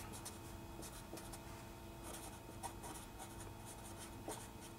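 Blue felt-tip marker writing words on paper: faint strokes as each letter is drawn. A low steady hum sits underneath.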